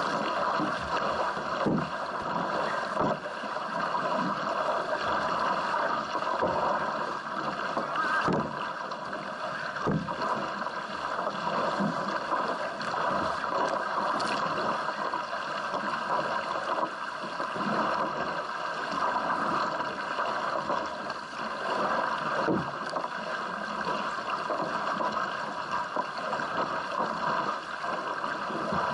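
Canoe polo kayak being paddled hard: double-bladed paddle blades striking and splashing the water, heard as irregular knocks over a steady rush of water along the hull.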